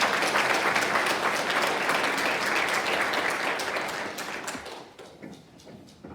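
Audience applauding, many people clapping together, then dying away about five seconds in.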